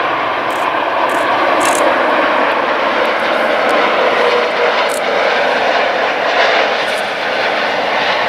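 Airbus A330-200 airliner's twin jet engines during landing, a loud steady roar with a rushing hiss that holds without a break.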